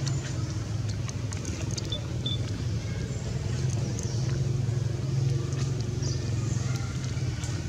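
A steady low motor-like rumble, with a few faint clicks and two short high peeps about two seconds in.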